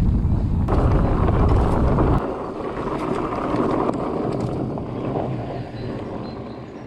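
Wind buffeting the microphone over the hiss of mountain bike tyres rolling on a dirt path, with a few small knocks early on. The wind rumble drops out about two seconds in, and the tyre noise carries on, fading toward the end.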